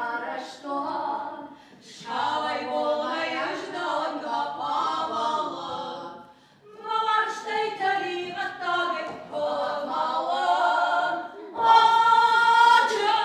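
Women's voices singing a song without instrumental accompaniment, in three or four phrases with brief breaks between them, ending on a loud held high note.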